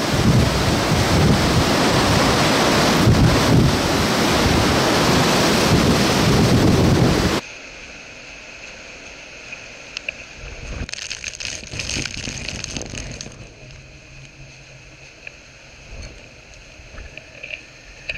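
Hurricane eyewall winds roaring and buffeting the microphone. About seven seconds in the sound drops suddenly to a much quieter stretch of wind with a thin, steady high whistle, which briefly swells again for a couple of seconds.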